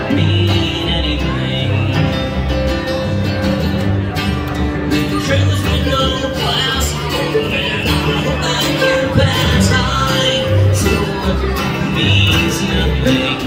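Live acoustic string band playing: acoustic guitar strummed, upright double bass plucking a pulsing bass line, and mandolin.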